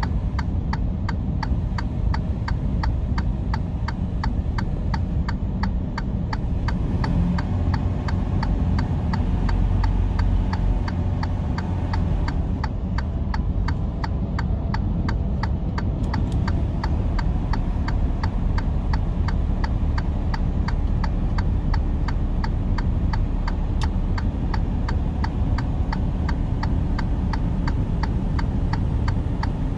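Steady low drone of a truck's engine and road noise, with an even, fast ticking of about three ticks a second.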